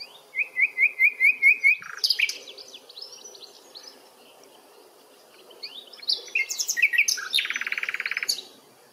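European goldfinch singing: a run of about seven quick, evenly spaced rising notes, then a twittering phrase of varied notes, and near the end a fast buzzy trill lasting about a second.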